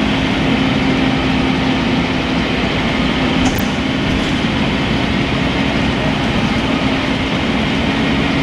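Scania N230UB bus's rear-mounted diesel engine running steadily, heard inside the passenger saloon as a constant hum under a wash of cabin and road noise. A brief faint click comes about three and a half seconds in.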